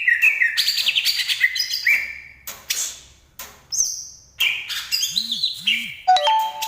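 Cucak ijo (greater green leafbird) singing: fast, varied phrases of short sliding chirps and whistles, broken by brief pauses. A few held, lower whistled notes come in near the end.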